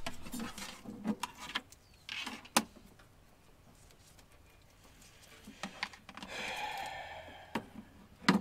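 Car-audio wiring being handled by hand: scattered light clicks and rustles of cables and connectors, with one sharper click a few seconds in. A soft scraping noise lasts about a second and a half past the middle.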